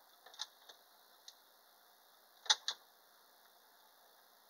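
A few scattered short clicks over a faint background hiss, the loudest a quick pair about two and a half seconds in.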